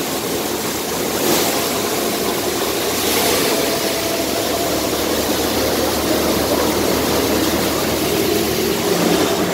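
Multicrop thresher running steadily while threshing paddy, a dense, even mechanical rushing noise.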